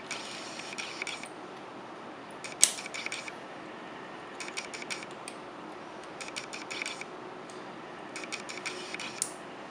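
Small wire cutters trimming the excess coil leg wire at the posts of a rebuildable dripping atomizer's deck: clusters of light metal clicks and taps, with two sharper snaps of the wire being cut, one about a quarter of the way in and one near the end.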